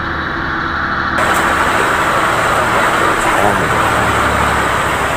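Outrigger fishing boat's engine droning steadily under the rush of wind and heavy sea. From about a second in, the hiss of waves breaking against the hull and outrigger grows louder.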